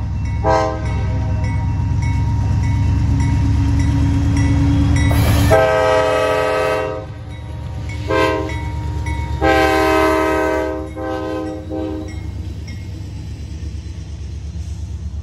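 CSX diesel freight locomotive passing close by, its engine rumbling loudly as it nears, while its air horn sounds a short toot and then two long blasts about five and a half and nine and a half seconds in, with short toots between and after. Near the end only the lower rumble of the train rolling past remains.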